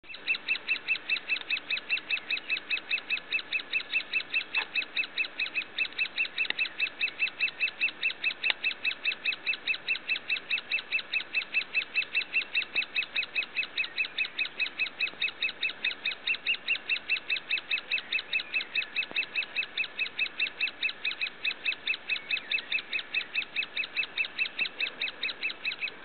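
Great spotted woodpecker nestling calling from inside its nest hole: a steady, unbroken string of short, high calls, about four a second. These are the young bird's begging calls.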